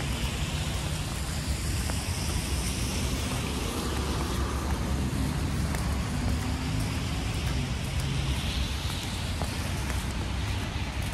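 Street traffic on a wet, slushy road: tyres hissing as cars pass, swelling near the start and again about eight seconds in, over a steady low rumble.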